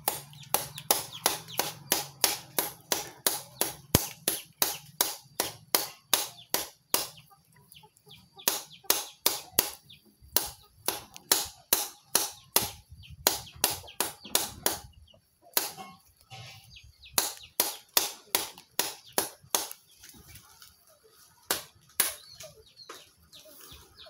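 Rapid chopping: a machete hacking through the leafy twig ends of a homemade brushwood broom laid on a wooden log, trimming them to an even length. The strokes come about three a second, in runs broken by short pauses.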